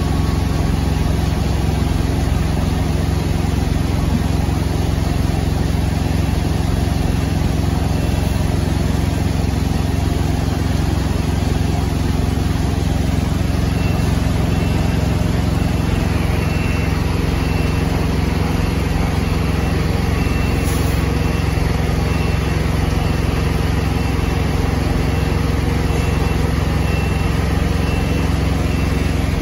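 Heavy diesel semi-truck engine running steadily at low speed as a tractor-trailer reverses slowly. From about halfway through, a faint high beep repeats about once a second.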